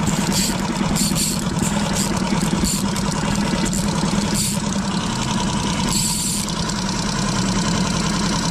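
Boat engine running steadily at trolling speed, a low even hum. A few short hissy rustles on top, the longest about six seconds in.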